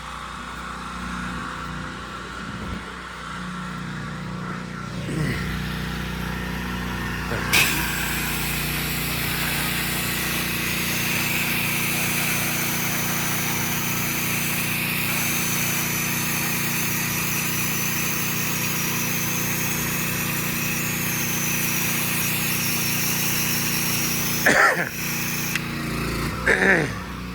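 Soft-washing rig's motor-driven pump running steadily. From about seven seconds in, the spray lets off a loud, even hiss until near the end. Two short, sharp noises follow.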